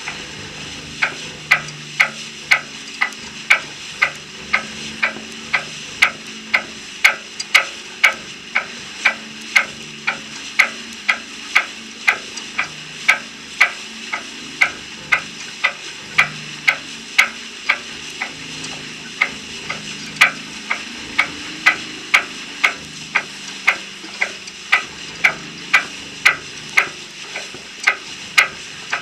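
Steady rhythmic ticking, about two sharp ticks a second, over a faint low hum.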